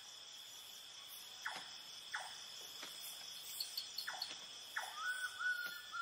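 Faint night-time insect chorus, a steady high trill, with a few short descending chirps scattered through it and a thin whistled note near the end.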